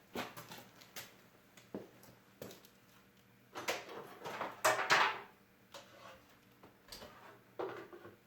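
Scattered clicks and knocks of handling, with a louder stretch of rustling between about three and a half and five seconds in, over a faint steady hum.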